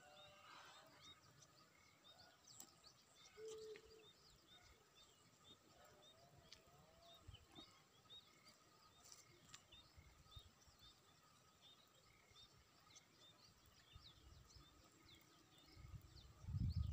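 Faint open-field ambience with many small bird chirps repeating throughout and a few brief louder calls; a low rumble comes in near the end.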